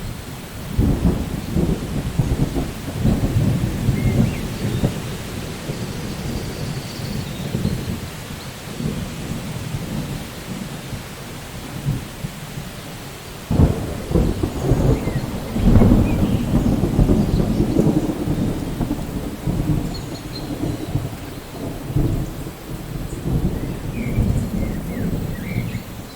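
Thunderstorm: steady rain with rolling thunder. A sharp clap of thunder about halfway through is followed by a long rumble.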